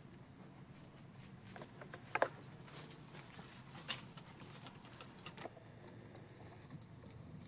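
Dogs' paws stepping and nosing through dry fallen leaves on sandy ground: faint, scattered rustling and crackling, with a louder crunch about two seconds in and a sharp crackle about four seconds in.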